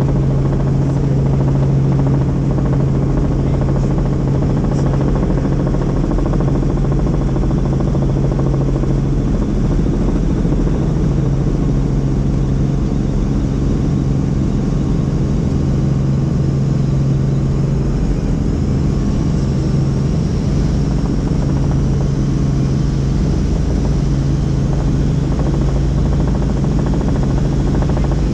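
Helicopter in flight: a loud, steady drone of engine and rotor noise with a strong low hum that holds one pitch.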